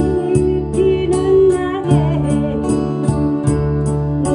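A woman singing a Korean ballad while strumming an acoustic guitar, over a steady beat of light ticks, nearly three a second, and a sustained bass.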